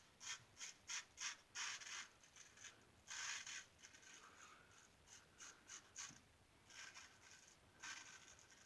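Single-edge safety razor with a Gem blade scraping through lathered stubble in short, faint strokes: a quick run of strokes at first, a longer stroke about three seconds in, then scattered strokes.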